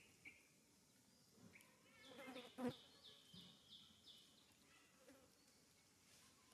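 Near silence, with a faint run of about five short high chirps and a single soft click about two and a half seconds in.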